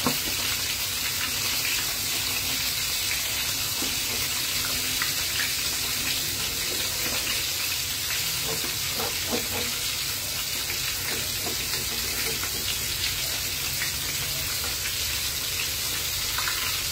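Tilapia frying in hot oil: a steady sizzle, with a few faint clicks.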